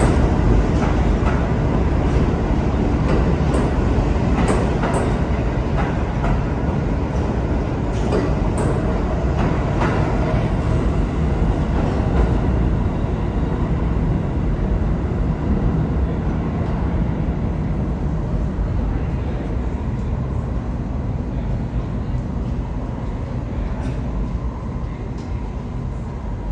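R46 subway train pulling out of the station, running with a steady rumble and sharp clicks of its wheels over the rail joints. The noise slowly fades over the second half as the last car draws away.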